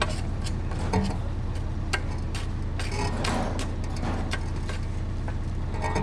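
Mini excavator's diesel engine running with a steady low hum, with sharp clicks about once a second on top.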